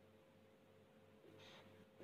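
Near silence: room tone with a faint steady hum, and a faint brief scratch of a felt-tip marker on paper near the end.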